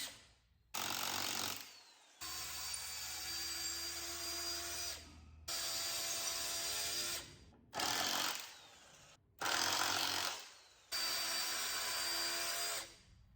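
Power drill running into wood, boring holes for lag bolts, in about six short runs that each start and stop abruptly.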